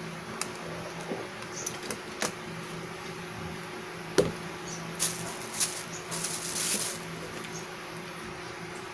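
Clicks and knocks of black plastic tripod and phone-holder parts being handled and fitted together, with the sharpest knock about four seconds in and a brief rustle between about five and seven seconds. A faint steady hum runs underneath.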